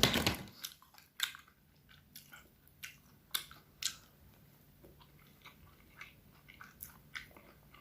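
A person chewing a mouthful of guacamole, with scattered short, sharp mouth clicks spread through the few seconds.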